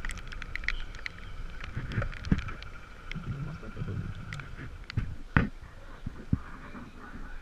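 Handling noise of rain gear being put on: rustling and scattered irregular knocks and clicks over a steady faint background noise, with one sharp knock about five and a half seconds in.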